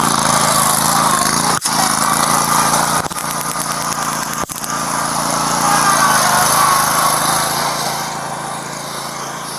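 Riding lawn mower's small engine running steadily, with a rushing noise over it.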